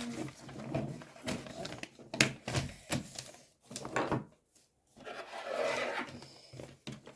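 Hard plastic toy parts being handled: a few separate knocks and clicks as pieces are pressed and fitted together, then a couple of seconds of rubbing.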